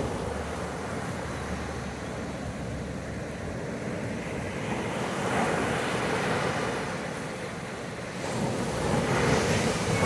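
Ocean surf breaking and washing up a sandy beach: a steady rushing wash that swells as a wave breaks about halfway through and again near the end.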